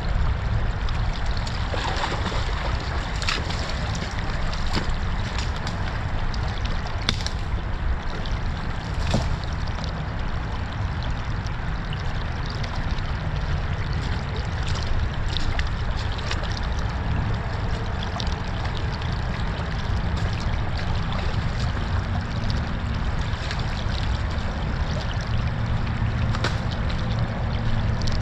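Shallow creek water running and trickling over mud and debris, with scattered small ticks, over a steady low rumble.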